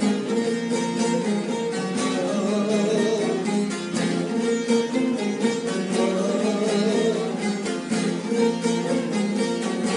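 Instrumental passage of a Turkish folk song played on plucked string instruments, with fast, dense picking over sustained notes.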